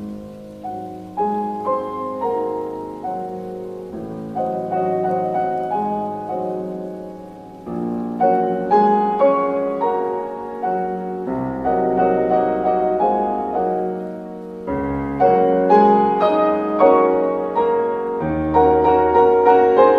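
Solo piano music with a sound of steady rain mixed in underneath, the playing swelling louder toward the end.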